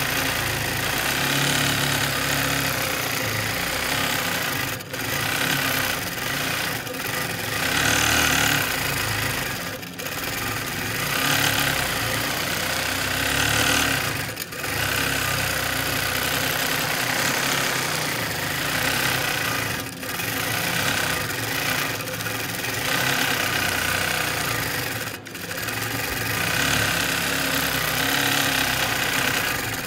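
Longarm quilting machine running, its needle stitching rapidly through the quilt layers in a steady mechanical chatter. The sound dips briefly about every five seconds.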